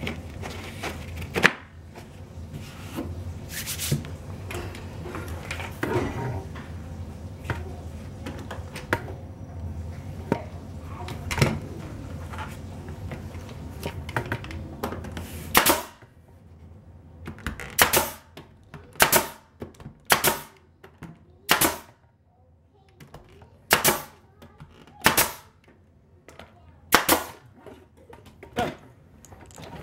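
Hammer blows fixing wooden chair-rail moulding to a wall: a few scattered knocks in the first half, then sharp single strikes about once a second from about halfway in.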